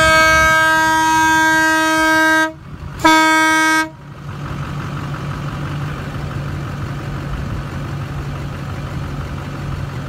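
Aftermarket 12-volt train-style air horn with its air compressor, mounted behind a pickup's grille and sounded on its first test: a long blast of about two and a half seconds, then a short blast of about a second, each a loud chord of several tones. After the blasts a steady low hum runs on.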